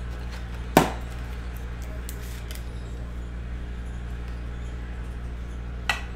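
Trading cards and a clear plastic card holder handled on a table: two sharp taps, a louder one about a second in and a lighter one near the end, over a steady low hum.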